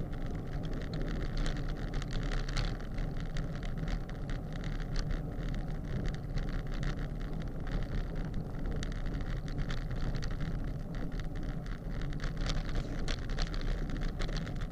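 Wind rushing over the microphone of a camera on a moving road bicycle, heaviest in the low rumble, with steady tyre noise on coarse chip-seal road and faint irregular ticks.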